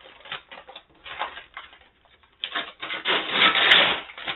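Brown paper shipping mailer being slit and torn open by hand, paper scraping, crinkling and rustling in irregular bursts. It is loudest in the second half as the bag is pulled open.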